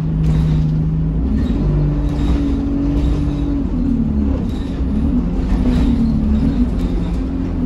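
Diesel engine and drivetrain of a single-deck bus heard from inside the saloon while it drives, a steady low rumble with a pitched whine that shifts up and down in pitch several times as the bus changes speed.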